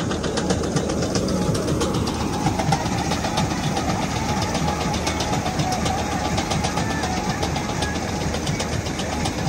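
Diesel engine of a combine harvester running steadily as its unloading auger pours paddy grain into a trolley, with a fast, even ticking over the engine drone.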